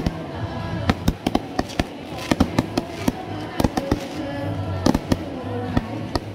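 Aerial fireworks bursting overhead in an irregular, rapid string of sharp bangs and crackles, with music playing underneath.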